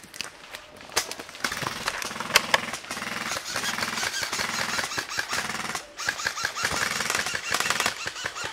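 Airsoft guns firing on full automatic: a fast, even mechanical rattle in two long bursts, with a short pause about six seconds in.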